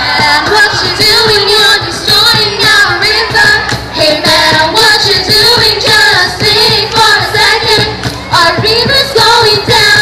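Young voices singing together into microphones over a backing track with a steady beat.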